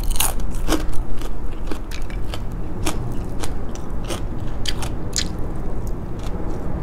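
A person eating close to the microphone, chewing and smacking the lips, with irregular sharp clicks of the mouth as she takes rice and meat by hand.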